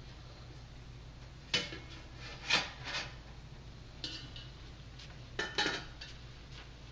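Stainless steel communion trays and their lids clinking and clattering as they are stacked and set down on a table: a few separate sharp metallic knocks, the loudest about two and a half seconds in.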